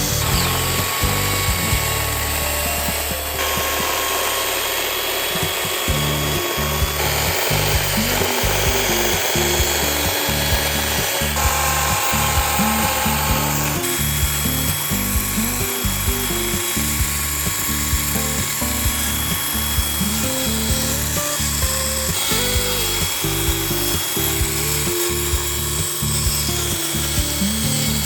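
Background music with a steady beat, laid over the high hiss and whine of power carving tools cutting into wood. The tool sound changes abruptly every few seconds.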